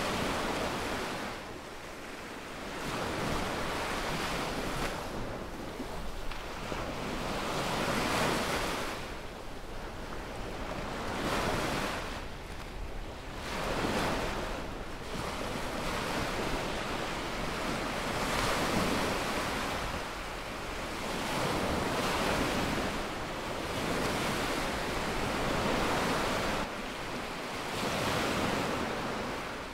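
Small waves breaking and washing up a sandy beach, the surf swelling and falling away every two to three seconds.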